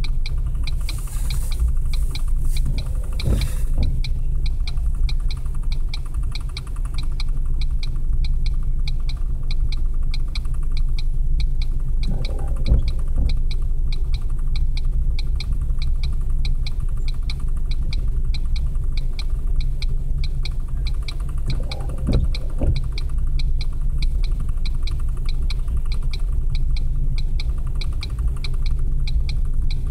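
Coal hopper cars of a freight train rolling past, heard from inside a car: a steady low rumble with a fast, even ticking throughout and a few brief louder swells.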